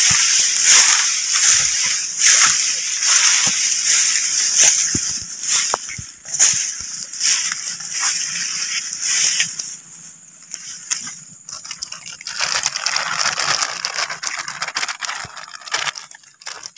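Leaves and dry brush rustling and crackling against the camera and clothing as a person pushes through undergrowth on foot, with twigs and leaf litter crunching. Near the end the sound thins to a lighter crinkle as a plastic bag is handled.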